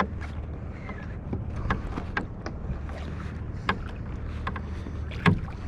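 Plastic fishing kayak afloat on calm sea: water lapping at the hull under a steady low rumble, with scattered knocks and clicks from the kayak and fishing gear. The loudest knock comes about five seconds in.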